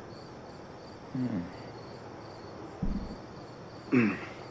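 Crickets chirping steadily in the background, with a brief voice sound falling in pitch about a second in and again near the end, and a short low thump about three seconds in.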